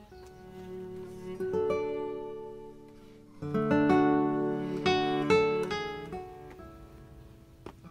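Background music of plucked acoustic guitar, chords and single notes ringing and fading, with fuller strummed chords coming in about a second and a half in and again about three and a half seconds in.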